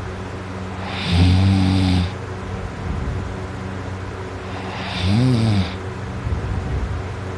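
A person snoring loudly in deep sleep: two snores about four seconds apart, each under a second long, the second rising and then falling in pitch.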